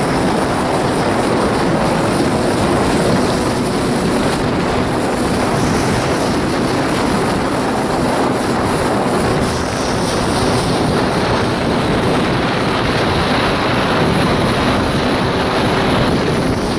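1993 Kawasaki 650SX jet ski's two-stroke twin engine running steadily under way, under a heavy, even rush of wind and water.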